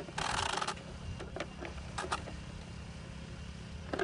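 Light clicks and taps of a hard plastic RC car body shell being pressed onto its chassis, with a short rustle about a quarter-second in, over a steady low rumble.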